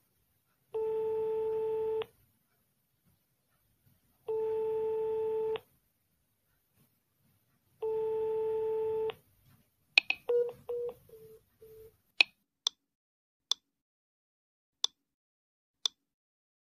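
Linphone app call tone: a steady low beep about a second and a quarter long, sounding three times about every three and a half seconds, in the pattern of a phone ringing tone. About ten seconds in it gives way to a few short beeps and clicks, then single sharp clicks a second or so apart.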